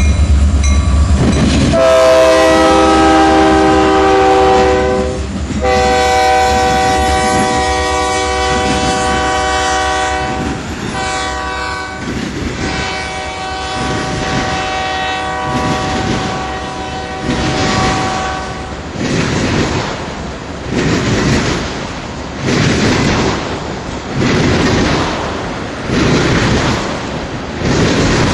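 Freight train passing: a diesel locomotive's deep rumble, then its multi-note air horn sounding two long blasts, a short one and a final long one, the grade-crossing signal. After the horn stops, the tank cars' wheels click rhythmically over the rail joints, about once a second.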